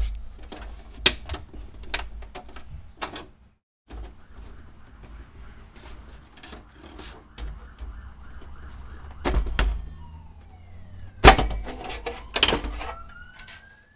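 Clicks and knocks of an HP ProDesk 400 G6 small-form-factor desktop's metal case as it is handled, turned on its side and its side-panel thumbscrew worked, with the sharpest knocks about nine, eleven and twelve seconds in. Near the end a siren wails faintly in the background, rising slowly in pitch.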